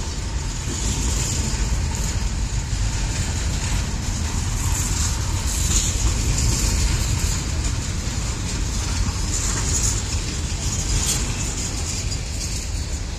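Freight train of empty intermodal well cars rolling slowly past, a steady low rumble of steel wheels on rail.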